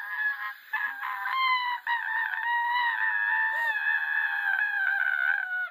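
A girl's long, high-pitched screech, rising at the start, then held steady for several seconds before it cuts off abruptly.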